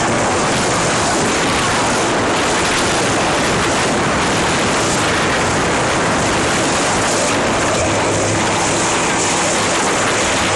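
Loud, steady rush of wind on the microphone and water streaming past a small motorboat at speed. The boat's engine hum comes through faintly near the end.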